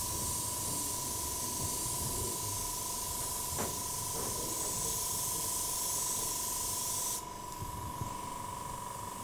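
Airbrush spraying paint in a steady high hiss, which stops abruptly about seven seconds in. A thin steady tone runs underneath, and there is a light click midway.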